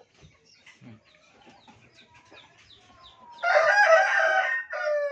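A rooster crows once, loudly, about three and a half seconds in, ending on a short falling note.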